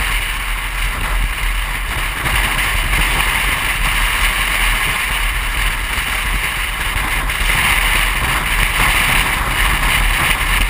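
Steady wind and road noise of a car driving along a highway at speed: a low rumble under a continuous hiss, with no engine note standing out.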